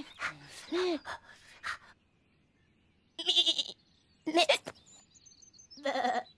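Bleating vocal calls from the cartoon lamb and goat characters: a quick run of short bleats in the first two seconds, then a pause, then three separate short bleats.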